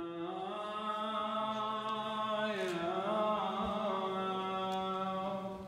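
Slow chanting: a long held note over a steady lower note, the pitch dipping and rising briefly about halfway through.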